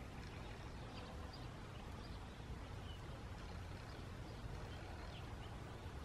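Outdoor meadow ambience: a steady low rumble with faint, scattered high chirps of distant birds.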